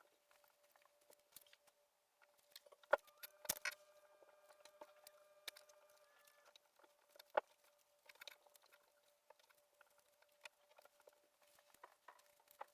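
Ribbons and a ribbon rack being handled: light rustling and small clicks, with a few sharper knocks, the loudest about three seconds in and again about seven seconds in.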